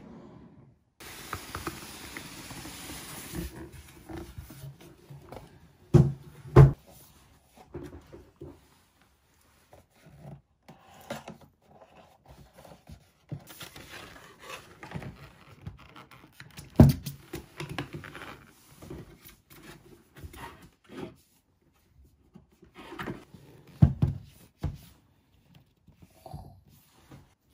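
Unboxing handling noise: cardboard packaging and paper sliding and rustling. A few sharp knocks come as the box and the leather-covered storage case are moved and set down, the loudest about six seconds in.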